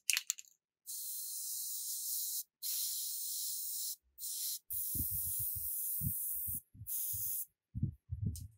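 Five bursts of high, spray-like hiss, each lasting from under half a second to nearly two seconds, with short gaps between them. A run of short, low thuds joins from about five seconds in.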